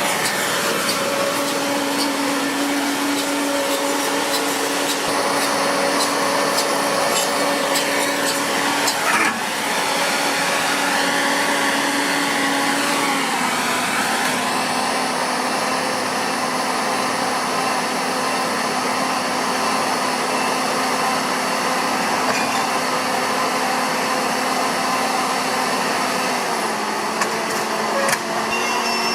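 Steady machine whirr with a humming tone whose pitch steps down slightly about 13 seconds in and again near the end.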